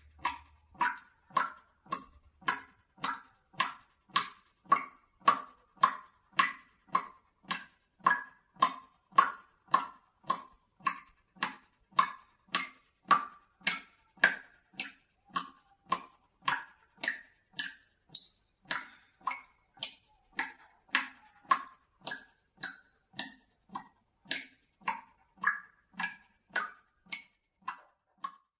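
Water dripping from a tap that has not been closed tightly into a bucket: steady drops, a little under two a second, each a short pitched plop.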